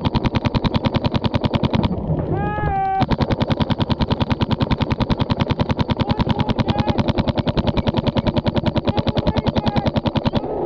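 Paintball markers firing rapidly in a long string of evenly spaced shots, about ten a second, with a short break in the firing about two seconds in.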